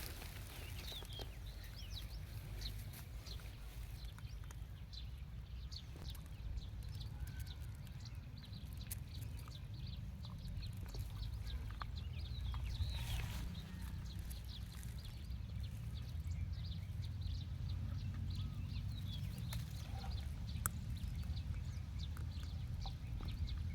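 Animal sounds: many short, scattered high chirps over a steady low rumble.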